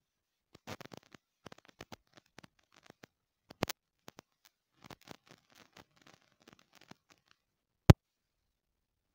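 Handling noise from a phone as it is touched and scrolled: scattered light scratches and taps, a sharper click a little past halfway, and one loud sharp click near the end.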